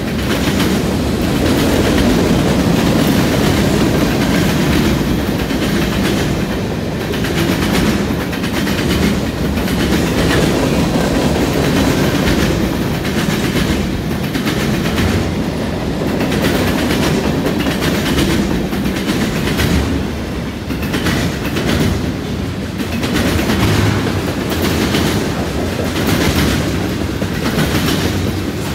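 Freight cars of a long mixed freight train rolling past close by, with boxcars, autoracks, tank cars and covered hoppers. Their steel wheels make a steady rumble on the rail, with repeated clicks as they pass over the track.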